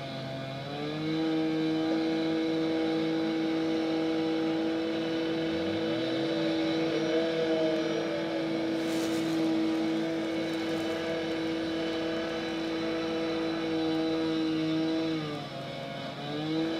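A machine's engine on a roadworks site revs up about a second in and holds at steady high revs. Near the end it drops back and then rises again.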